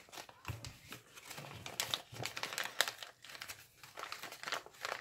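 Origami paper rustling and crinkling in the hands, with irregular soft crackles as pleated folds are gathered and pressed together.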